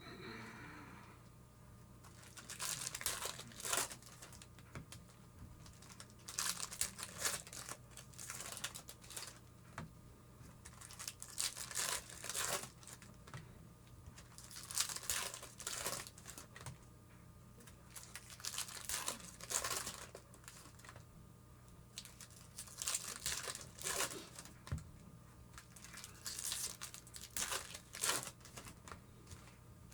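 Baseball card pack wrappers being torn open and crinkled by hand, in short rustling bursts every second or two.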